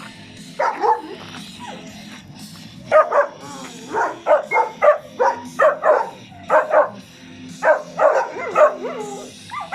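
Dogs barking: two short barks, then a quick run of sharp barks about twice a second, over background music.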